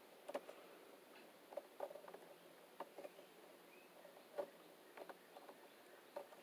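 Faint, scattered small clicks and rustles of stripped electrical wire ends being twisted together by hand.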